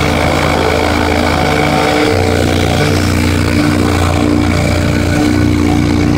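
Bass-heavy music: long, steady low bass notes that step to a new pitch every couple of seconds under a dense, loud mix.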